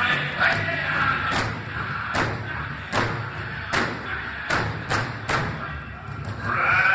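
Powwow big drum struck in unison by the drum group's sticks: about eight heavy beats, roughly one a second and closer together in the second half. Singing is heard over the first second, and high-pitched male singing starts again near the end.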